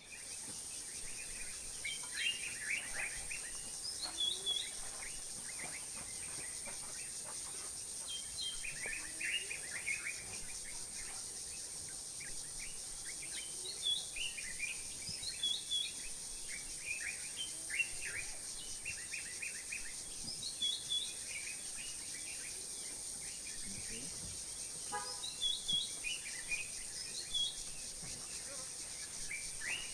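African bush ambience: a steady high-pitched insect drone, with birds calling in short bursts of chirps and trills every few seconds.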